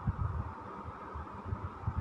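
Ladle stirring rasam in a steel pot, giving soft, irregular low knocks over a steady background hiss.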